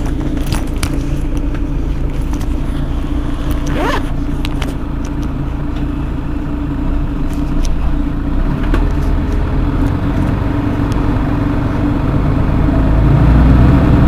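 Mercedes-Benz Citaro G C2 articulated bus engine idling, a steady low rumble that grows louder over the last few seconds. A brief rising squeal sounds about four seconds in.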